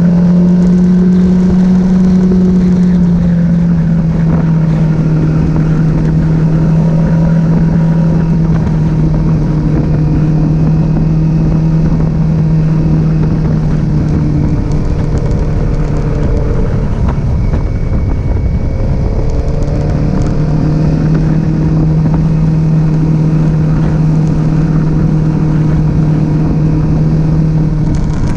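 Z400's engine running at a steady pitch, a little higher for the first few seconds before settling.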